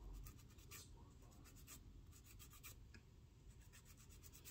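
Faint, rhythmic scratching of a nail buffer stroked back and forth across a fingernail, about three to four short strokes a second, buffing the nail surface before the dip-powder base coat.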